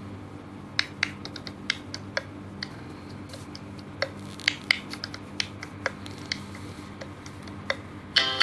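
A dozen or so irregular sharp clicks and ticks, spread unevenly over several seconds, above a steady low hum. Guitar music comes in right at the end.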